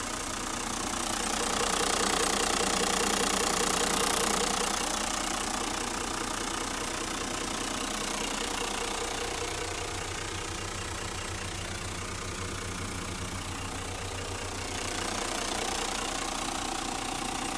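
Toyota 1HD-FTE 4.2-litre straight-six turbo-diesel in a Hino Liesse II bus idling steadily. It grows louder for a few seconds near the start and again near the end.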